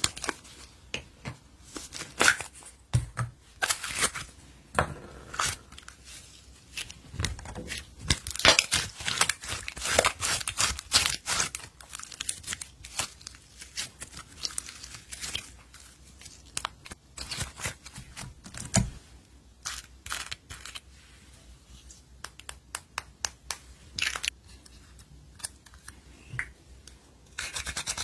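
Slime being kneaded and stretched by hand, giving a run of sticky clicks and small pops that come thickest about a third of the way in.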